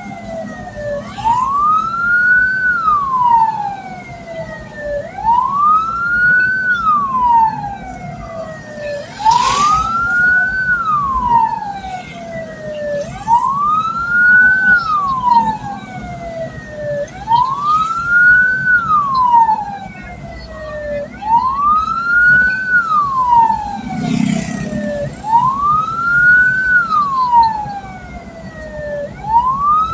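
Vehicle siren wailing over and over: each cycle rises quickly and falls slowly, about one every four seconds, with vehicle engine and road rumble beneath.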